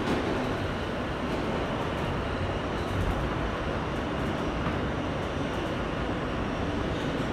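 Inside an R160B subway car running between stations in a tunnel: the steady rumble and rattle of the car travelling along the track.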